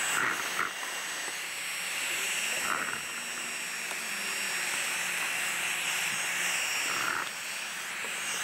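Electric heat gun running steadily, its fan blowing a steady hiss of hot air over vinyl wrap film as it is post-heated to set the adhesive.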